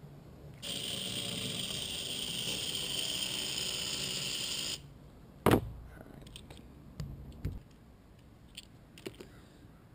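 A Hot Wheels Total Control Racing toy car running with its tires removed on the plastic track, its small electric motor giving a steady whine for about four seconds before it cuts off. About a second later there is a sharp knock, the loudest sound, followed by a few light handling clicks.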